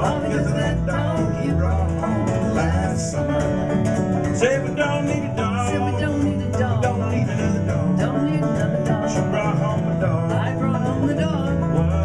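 Acoustic bluegrass band playing an instrumental break: banjo, mandolin and acoustic guitar picking together at a steady tempo.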